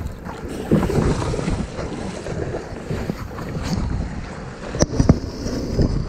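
Wind buffeting the microphone over water sloshing and splashing against a kayak hull, with a few sharp knocks, the loudest about five seconds in.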